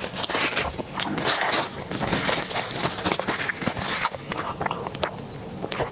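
Close-miked eating sounds of someone eating a dessert: wet chewing and mouth clicks in a dense crackle, easing off after about four seconds.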